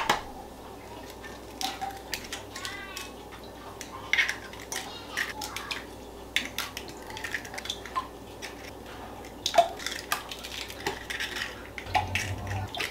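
Eggs being cracked one after another into a glass measuring jug: a string of sharp, irregularly spaced taps and shell cracks.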